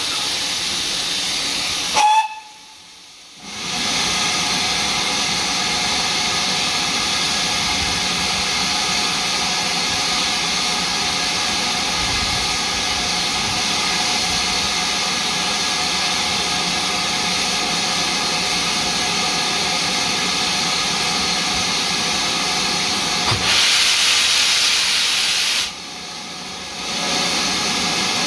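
Steam locomotive hissing steam steadily, with a brief sharp tone about two seconds in and a louder, brighter rush of steam near the end.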